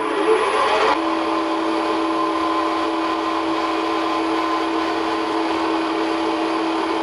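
Milling machine spindle set to 315 rpm starting up: its whine rises over about the first second, then the machine runs steady with an even gear whine.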